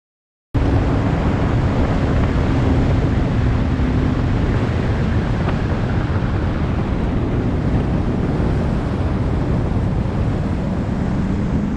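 Silence for about half a second, then a boat under way: steady wind rush over the microphone and water noise, with the boat's motor running as a faint steady hum underneath that drops a little lower near the end.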